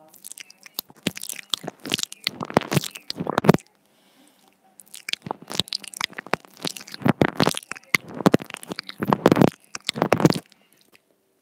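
Teeth nibbling and biting on a wired earphone's inline microphone held at the lips, a close, dense crackle of clicks and crunches. It comes in two runs, with a short pause about four seconds in.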